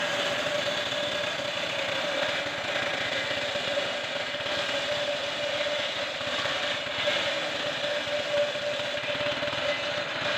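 Homemade table-mounted circular resaw running steadily with a steady whine while a wooden plank is fed through the blade and ripped lengthwise.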